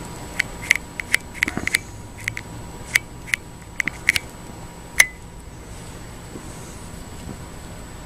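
A run of short, sharp clicks at an uneven pace for about five seconds, the loudest near the end of the run, over a faint steady hum.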